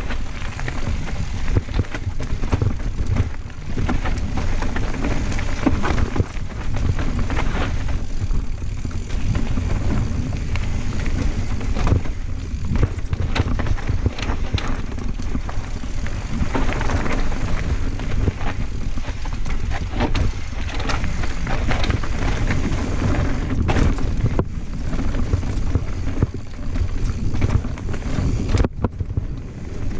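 Cross-country mountain bike (Santa Cruz Blur) descending a dirt and rock singletrack at speed: a continuous rumble of wind on the microphone and tyres on dirt, with frequent clatters and knocks as the bike rattles over roots and rocks.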